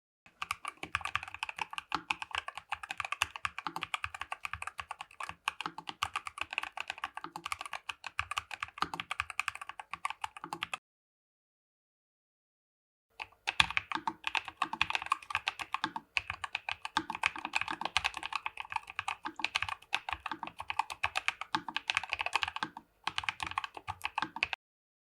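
Typing on a NuPhy Air96 V2 low-profile mechanical keyboard: a dense, fast run of keystroke clacks on Aloe switches, then a gap of about two seconds, then a second run on Cowberry switches.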